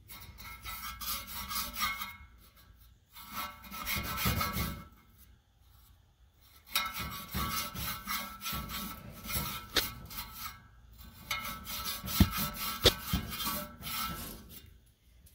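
A toothbrush scrubbing caked dust off the sheet-metal fins of a furnace blower's squirrel-cage wheel. The scratchy rubbing strokes come in four spells with short pauses between them.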